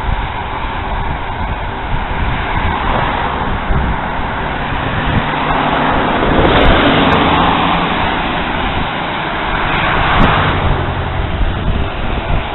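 Road noise from cars passing on a two-lane road, heard over a steady rush of wind on the microphone of a camera on a moving bicycle. The traffic grows louder about six seconds in and again near ten seconds.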